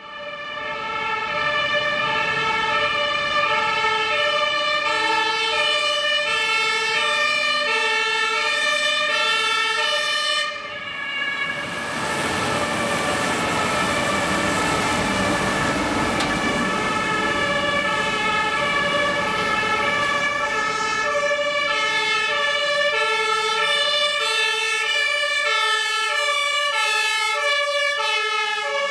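Several German two-tone emergency sirens (Martinshorn) sounding at once, each switching between its high and low note about every 0.7 seconds, out of step with one another. Around the middle, a swell of heavy engine and tyre noise rises under the sirens as a Mercedes fire engine drives close past.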